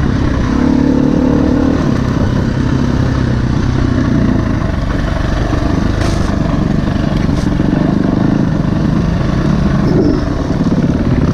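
Dirt bike engine heard from on the bike while riding rough single track, its revs rising and falling with the throttle.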